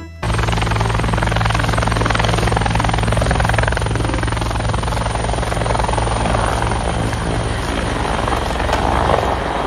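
Helicopter sound: rotor blades chopping rapidly over a steady engine hum, starting abruptly and running at an even level.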